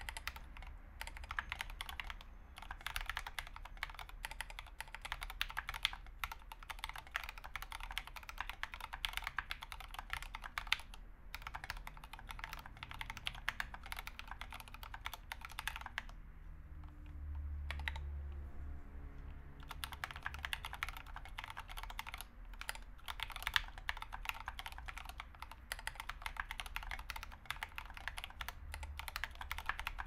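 Fast typing on an Idobao ID80 mechanical keyboard with Zeal Turquoise Tealio 65g linear switches, lubed with Krytox 205g0, under SA-profile ABS keycaps: a dense, continuous stream of keystroke clacks. Just past the middle the typing stops for about three seconds, leaving only a low rumble, then picks up again.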